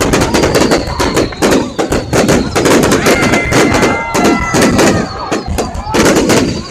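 Aerial fireworks going off in rapid, dense volleys of bangs and crackles. Thin whistling tones run through the barrage from about three to four and a half seconds in. Crowd voices are underneath.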